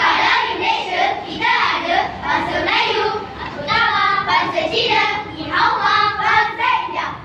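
A choir of primary-school children singing together in unison.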